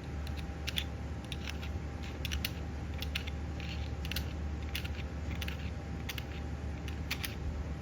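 Hand tools working on a truck axle's hub parts: sharp metallic clicks in small clusters, about one cluster every half-second to second, over a steady low hum.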